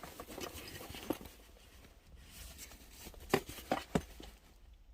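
A camera bag being handled: soft rustling, then three short sharp clicks or knocks a little over three seconds in.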